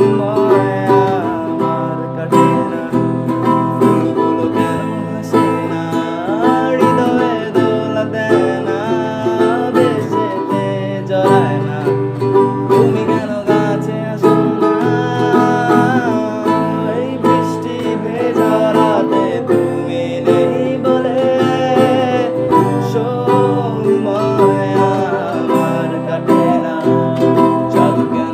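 An acoustic guitar and a ukulele playing a song together, with continuous plucked-string accompaniment.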